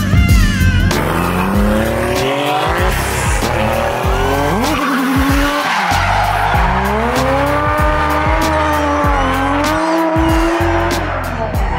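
Drift car engine revving hard, its pitch repeatedly climbing and dropping as it is driven sideways through the corner, with tyres squealing. Background music with a steady beat plays underneath.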